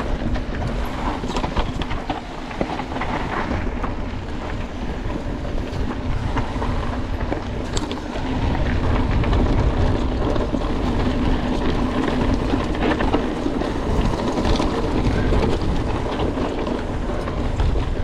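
Mountain bike ridden hard on a dirt trail: rumbling tyres and rattling of the bike, with wind buffeting the microphone. It gets a little louder about eight seconds in.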